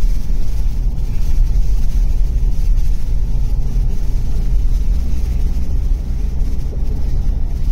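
Steady low rumble of a car driving on the road, heard from inside the cabin: tyre, road and engine noise with no sudden sounds.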